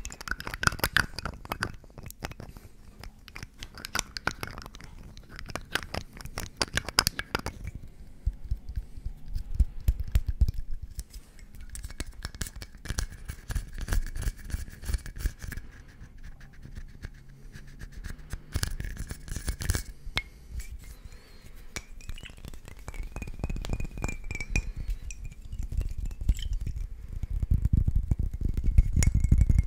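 Fingertips tapping and scratching on a small glass dropper bottle and rubbing over the microphone close up: dense, rapid taps and scrapes with soft low thumps, and a few clinks of glass.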